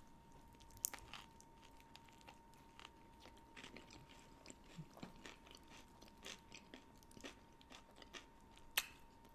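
Close-miked mukbang eating sounds: biting into and chewing a BBQ shredded brisket taco, with many small wet mouth clicks and crunches. Sharp cracks come about a second in and near the end.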